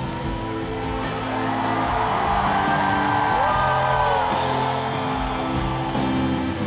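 Live concert music over an arena sound system, heard from high in the stands, with sustained chords; the crowd cheers and whoops over it, loudest around the middle.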